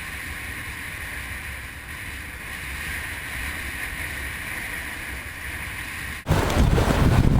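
A steady rush of wind and surf; about six seconds in it cuts abruptly to much louder wind buffeting the microphone.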